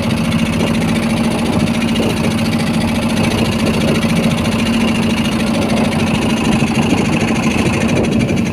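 Fishing boat's engine running steadily at a constant speed, a level pitched hum.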